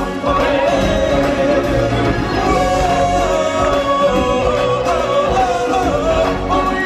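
Live stage-show music: a woman singing lead into a handheld microphone over an amplified musical backing with choral voices, held melodic notes with no break.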